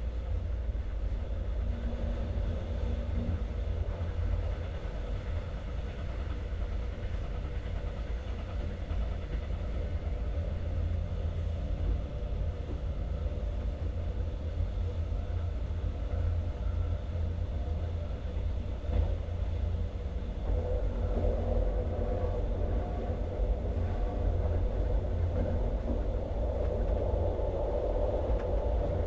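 Passenger train running along the line, with a steady low rumble of wheels on rails. A higher drone grows stronger about two-thirds of the way through.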